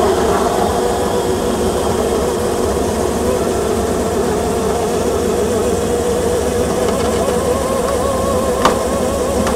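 Forestry harvester's diesel engine and hydraulics working under load, a steady run with a wavering whine over the low engine note. One sharp click comes near the end.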